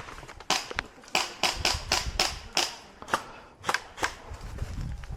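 Airsoft guns firing single shots: about ten sharp cracks spread over three and a half seconds, unevenly spaced.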